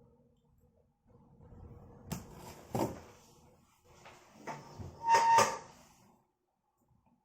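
A parcel being opened by hand: rustling and scraping of packaging with a few sharp clicks, and one louder scrape about five seconds in.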